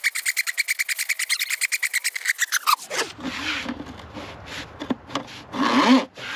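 RIDGID K-400 drum drain cleaning machine running with a rapid, even clatter about ten times a second over a steady whine. It is switched off a little under three seconds in, the whine dropping sharply in pitch as it stops. Then come irregular handling noises, with two louder ones near the end.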